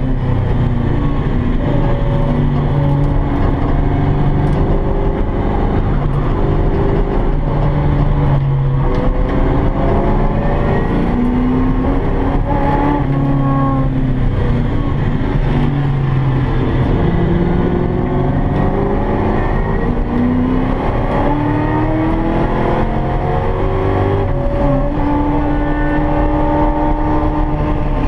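V8 engine of a Ford Fairmont track car heard from inside the cabin, loud and constant, its pitch climbing as it accelerates and dropping back several times as it brakes and shifts around a road course.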